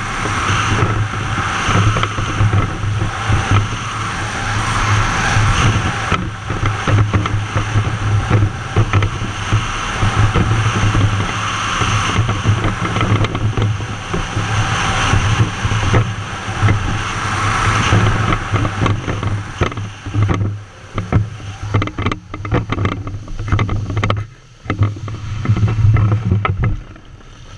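Stand-up jet ski engine running at speed under the rider, a steady drone mixed with the hiss of water spray off the hull. Near the end the sound drops away sharply a few times and comes back.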